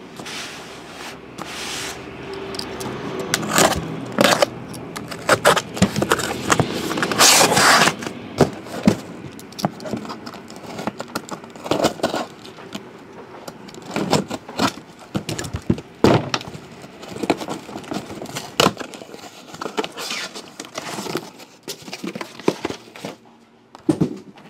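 A cardboard shipping case being opened and its shrink-wrapped Tier One baseball card boxes taken out and stacked. Scraping and crackling of cardboard and plastic wrap in the first several seconds, then a long run of separate knocks as the boxes are set down on one another.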